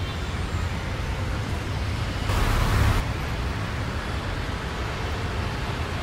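City street traffic: a steady low rumble of road vehicles, with a louder rushing swell for under a second around the middle.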